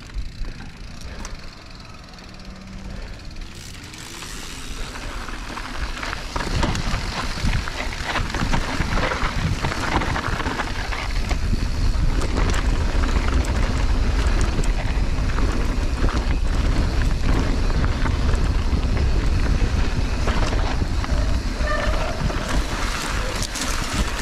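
Mountain bike rolling downhill over a rutted, rocky dirt trail: the tyres crunch over the ground with frequent knocks and rattles from the bike, a steady rumble underneath. It grows louder from about six seconds in as the bike picks up speed on rougher ground.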